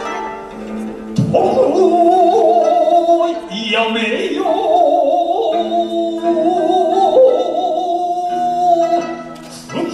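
Shigin (Japanese poetry chanting): a solo voice entering about a second in and holding long, wavering notes with heavy vibrato over a sustained instrumental accompaniment. The voice drops away shortly before the end.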